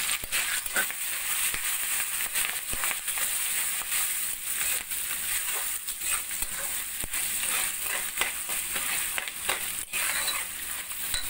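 Oil sizzling in a metal kadai as a tempering of peanuts, dals, dried red chillies, green chillies and curry leaves fries, with a spatula scraping and clicking against the pan as it is stirred.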